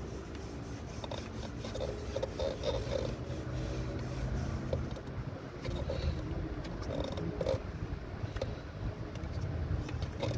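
Scraping, rubbing and small irregular clicks of hand work on engine parts in a car's engine bay, over a steady low hum.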